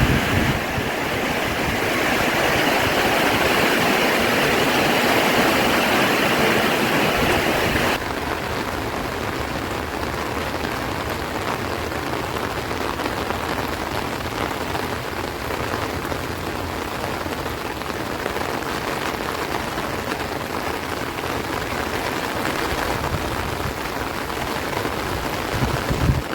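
Heavy rain falling on rice plants and trees, a dense steady hiss. It is louder for the first eight seconds, then drops abruptly to a softer, steady level.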